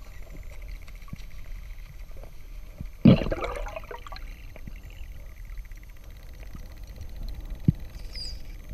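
Underwater ambience heard through a diver's camera housing: a steady low rumble with scattered faint clicks. About three seconds in comes a sudden loud knock that dies away over about a second, and near the end a short falling high whistle.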